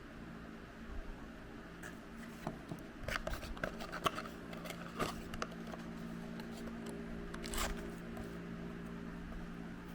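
Plastic toy packaging being handled and opened: a run of crinkles and small clicks, then a short rasping rip about seven and a half seconds in, over a steady low hum.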